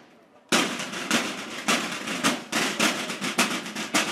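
Marching band snare drums kick in about half a second in after a brief silence, playing a fast, busy cadence of sharp strikes.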